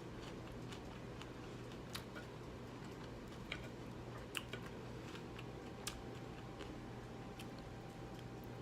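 A few light, scattered clicks and taps of kitchenware, over a steady low hum.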